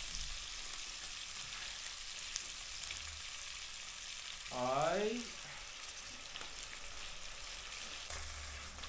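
Pork ribs sizzling steadily as they fry in oil and soy sauce in a small pot. A short voice sound comes about halfway through.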